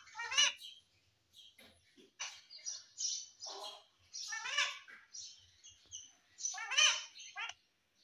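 Indian ringneck parakeet chattering close up: soft high chirps throughout, broken by louder squawking calls about half a second in, around four and a half seconds, and again near seven seconds.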